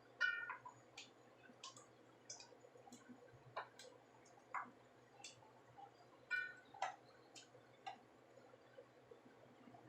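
Garlic chive flower stalks being snapped and picked apart by hand: faint, irregular sharp snaps and clicks, the loudest just after the start and near seven seconds in.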